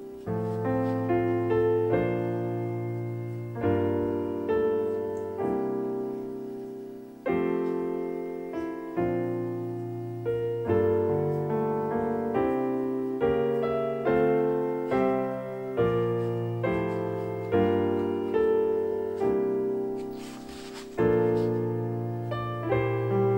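Gentle solo piano background music, notes struck one after another and left to ring and fade. About twenty seconds in there is a brief soft rustle.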